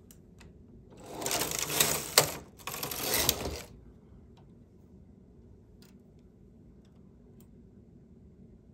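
Singer 328 knitting machine carriage pushed across the metal needle bed and back: two clattering passes of about a second and a half each, with a sharp clack where it turns. A few faint clicks follow as needles are pushed forward by hand.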